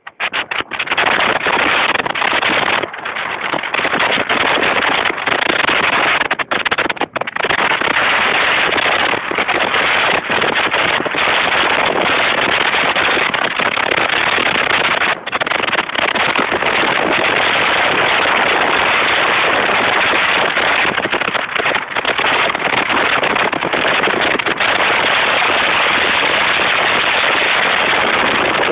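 Small motorboat with a 70 hp Volvo Penta 700 motor running fast, heard mostly as loud, crackling wind rush over the microphone that buries the engine, with a few brief dips.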